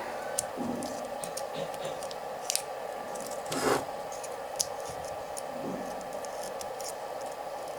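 Light clicks and scratches of paper separators being pressed into the slots of a ceiling fan's wound stator coil, with one louder scrape about three and a half seconds in, over a steady background hum.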